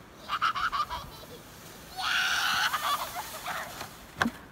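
A person's sustained, honk-like shout or scream lasting about a second, preceded by a quick run of short pulsed sounds near the start. A single sharp knock comes near the end.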